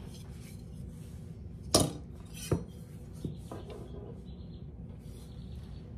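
A chef's knife and a wooden ruler knocking against a countertop as they are handled: one sharp clack a little under two seconds in and two lighter knocks after it. Faint scraping follows as the knife is lined up along the ruler on the pastry.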